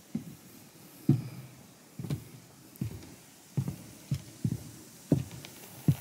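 Footsteps on wooden trail steps: about nine dull thuds, a little under one a second.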